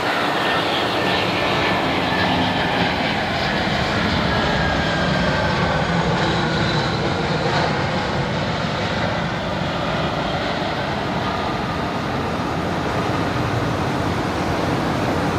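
Jet engines of an Airbus A320-214 (CFM56 turbofans) landing: a steady rushing engine noise with a high whine that slowly falls in pitch as the aircraft passes.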